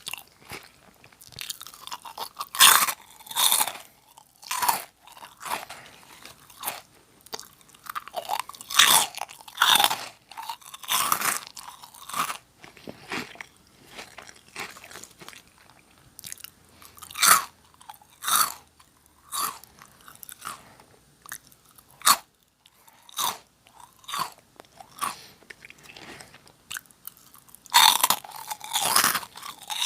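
A person biting and chewing Nongshim Jagalchi, a crisp fried snack, with sharp crunches. Loud clusters of crunching come about three seconds in, again around ten seconds, and near the end, with quieter chewing crackles between.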